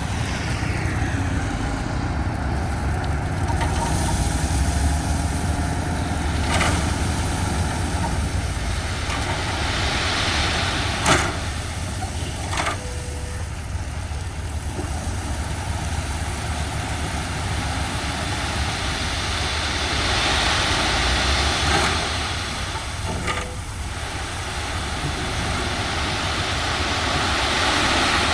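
Heavy diesel earthmoving machinery running steadily at work, a continuous low rumble, with a few sharp clanks; the loudest clank comes about eleven seconds in.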